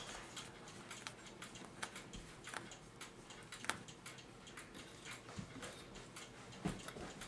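Faint, irregular metallic clicks, a few a second with a louder one now and then, as a key turns the mainspring arbor of a c1915 New Haven Tambour No. 7 clock movement. The arbor is not catching the loop end of the mainspring, which keeps slipping off.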